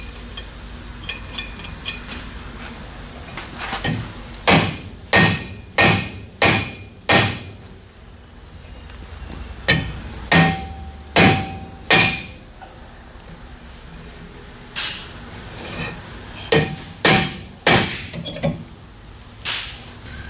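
Hammer blows on a steel brake rotor that fits too tightly on the rear axle hub, in three runs of sharp strikes a little over half a second apart, several leaving a short metallic ring.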